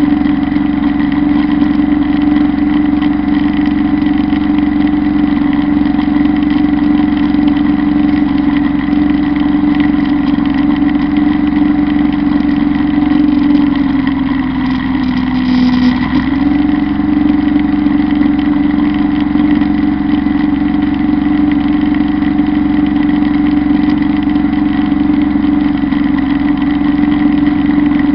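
Kubota Bulltra B1-17 compact tractor's diesel engine running steadily while driving a drum mower through tall grass. Its pitch dips briefly about halfway through.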